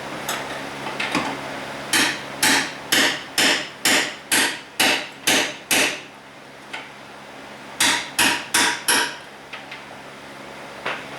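Hammer blows on steel body panel: a run of about nine strikes, roughly two a second, then after a pause four more, over a steady low hum. It is the hammering-out of bent, buckled sheet metal on a damaged car front end.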